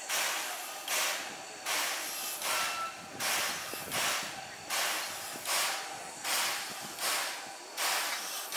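JNR Class C11 steam locomotive standing with steam up, giving off short hissing puffs of steam in a steady rhythm of about one and a half a second, the beat of its steam-driven air pump.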